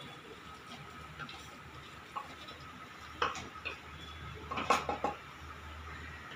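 A spoon scrapes and clinks against the sides of an aluminium pressure cooker pot as chopped banana stem is stirred into thick masala. There is a sharper knock about three seconds in and a cluster of knocks near the five-second mark.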